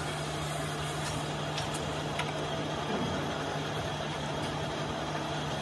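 A steady hum from some machine or engine running nearby, with a couple of faint tool ticks.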